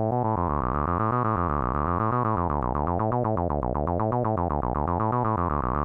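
Donner B1 303-style analog bass synthesizer playing a quick repeating bass pattern through its resonant low-pass filter, with the resonance turned up. The notes grow brighter about half a second in as the filter is opened.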